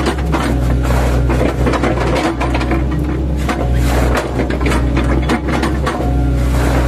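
An 8-ton mini excavator's diesel engine running steadily under load while its bucket, fitted with chipping blade tips, chops into an oil palm trunk, with repeated sharp cracks and crunches of the fibrous wood.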